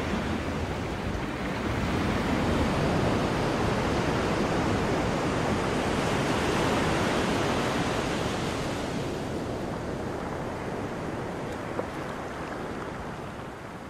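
Ocean surf washing, a steady rush with no distinct wave breaks, fading out over the last few seconds.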